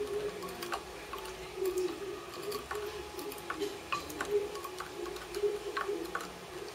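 A wooden muddler stirring lime, sugar and cachaça in a glass, with no ice, knocking and scraping against the glass in irregular light clicks.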